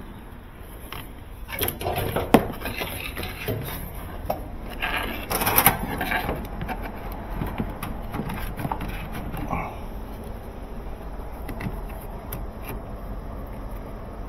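Corrugated plastic washing-machine drain hose being handled and worked onto its fitting under the machine: scraping and rubbing with a few sharp knocks, busiest in the first six seconds and quieter after.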